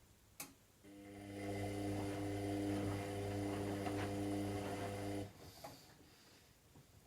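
Washing machine's drain pump starting with a click and humming steadily for about four seconds, then cutting off suddenly, with a second click just after.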